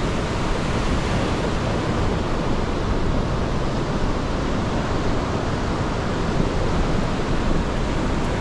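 Ocean surf washing up a beach under strong wind, with the wind rushing over the microphone: a loud, even rush of noise with no separate wave breaks standing out.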